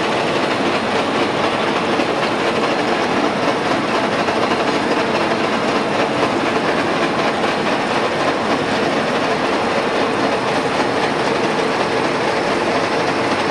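Vertical milling machine running steadily while its dovetail cutter mills a dovetail slot in a fluoroplastic (PTFE) block: constant spindle and gear noise mixed with the sound of the cut.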